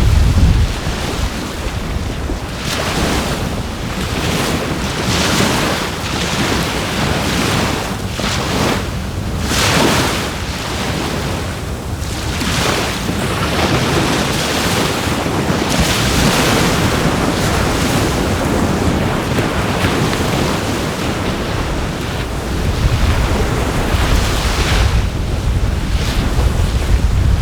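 Sea waves washing on the shore, swelling and ebbing every few seconds, with wind rumbling on the microphone, heaviest at the start and again near the end.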